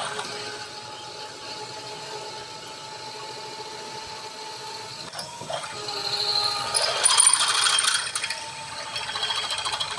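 Milling machine running with a steady motor whine while a drill bit bores a hole in a metal airgun test tank for its pressure gauge. The cutting gets louder and grittier from about five and a half to eight and a half seconds in.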